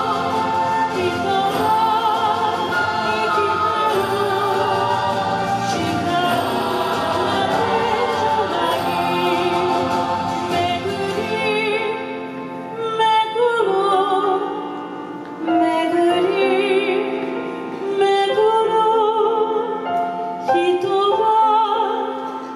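A woman singing into a microphone over backing music, amplified through PA speakers, her held notes wavering with vibrato. About halfway through the accompaniment thins, and the voice comes in separate phrases with short dips between them.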